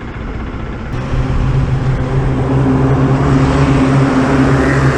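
Motorcycle engine running at a steady pitch, with wind or road noise building up over the last few seconds.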